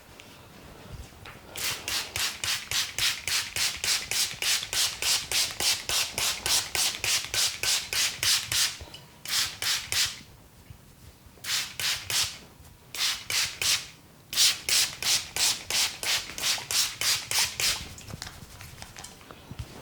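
A masseur's hands rubbing briskly over the head and hair in quick, even strokes, about four a second. The strokes come in several runs with short pauses between them.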